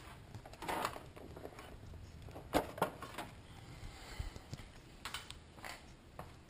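Handling noise as cables and plugs are unplugged and moved: a few light, separate clicks and knocks, the sharpest about two and a half seconds in.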